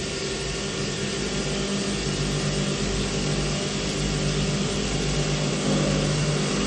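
CNC vertical milling machine cutting a metal hub under flood coolant: a steady spindle and cutting hum with a few held low tones, over the hiss of the coolant spray.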